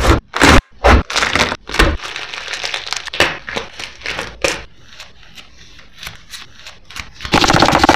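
A knife cracks open a ripe jackfruit with heavy knocks. Gloved hands then tear the sticky fibres and pull out the bulbs with crinkling, crackling sounds. Near the end a dense, steady hiss starts as jackfruit slices begin frying in oil.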